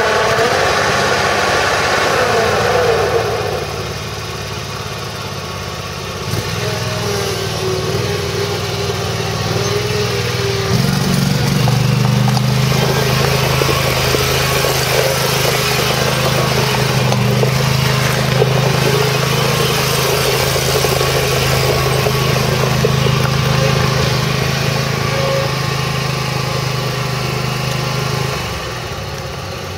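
Cub Cadet Tank zero-turn mower's 24-horsepower Honda engine running steadily under load as it mows and bags grass, over a hiss from the cutting deck and bagger. The engine hum grows louder about a third of the way in and falls off near the end.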